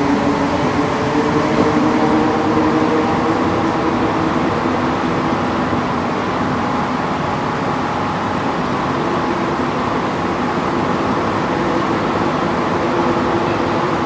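Inside a rubber-tyred Montréal Métro Azur train running through a tunnel: a steady rumble and hiss from the car. A motor whine is clear for the first few seconds, fades, and returns faintly near the end.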